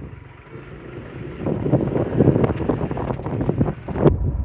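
Motorbike riding along a road with wind buffeting the microphone, swelling louder about a second and a half in, and a sharp knock near the end.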